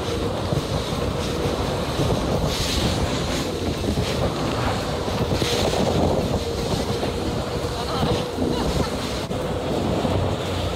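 Wind buffeting the microphone on an open jet boat running at speed, over the steady rush of the boat and water with a faint steady whine underneath. Two brief surges of hiss come about two and a half and five and a half seconds in.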